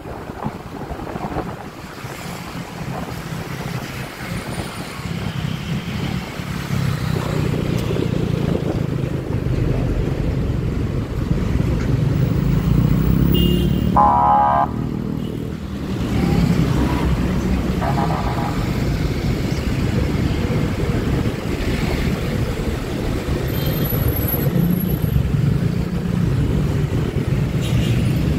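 Honda Click 125i scooter under way in city traffic: its single-cylinder engine running with road and wind noise, getting louder over the first ten seconds or so. A short pitched tone sounds about halfway through and another a few seconds later.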